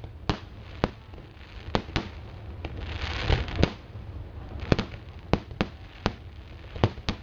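Fireworks display: over a dozen sharp bangs from exploding shells at uneven intervals, with crackling hiss between them.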